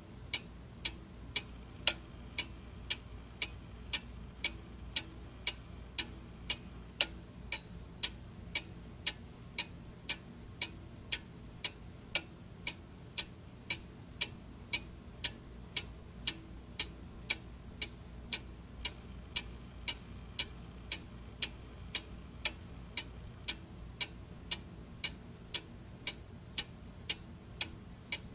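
A clock ticking steadily, about two ticks a second, each tick a short sharp click.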